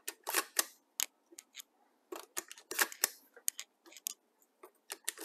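Mini shotgun shells being pushed one by one into the tube magazine of a Mossberg 590A1 pump shotgun fitted with a cartridge adapter: a string of short, sharp clicks of shell against shell stop and follower, at irregular intervals.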